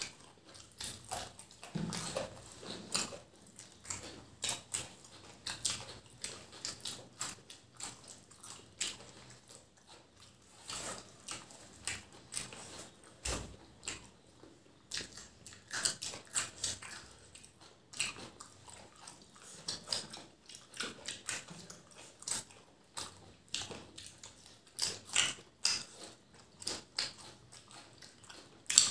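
Close-up chewing and lip smacks of two people eating rice and curry by hand: a continual run of short, wet clicks.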